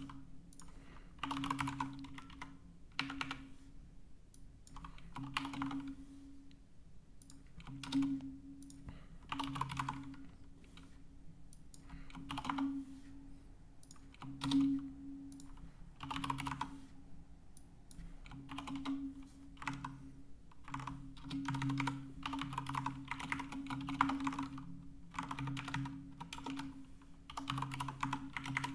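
Typing on a computer keyboard: short bursts of rapid keystrokes with pauses between, as numbers and a spreadsheet formula are keyed in.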